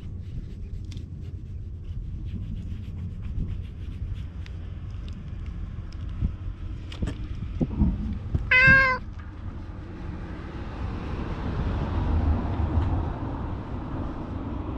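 A cat meows once, a short loud meow close to the microphone about halfway through. It is preceded by rustling and handling noises.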